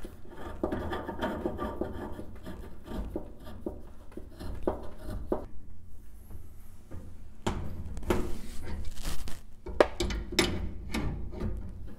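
Metal gas-line adapter fitting scraping and rubbing as it is threaded by hand into a stove's gas inlet, followed by sharp metallic clicks and knocks from an adjustable wrench set on the fitting to tighten it, the loudest of them in the second half.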